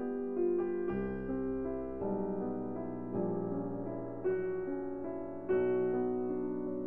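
Background piano music, one note or chord after another, every half second to a second.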